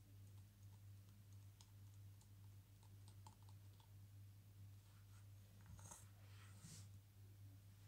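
Near silence with faint, scattered clicks of small plastic toy figures being handled on a carpet, over a low steady hum. A brief rustle about six seconds in.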